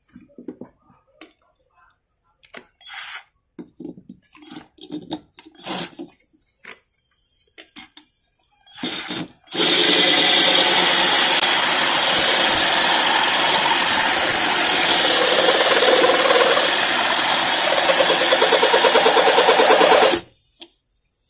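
Cordless drill with a glass hole saw boring into the bottom of a glass jar through a plastic guide, run dry without water: about ten seconds of steady running with the bit grinding on the glass, pulsing slightly near the end before cutting off sharply. Before it, light knocks and clicks of the jar, guide and drill being set in place.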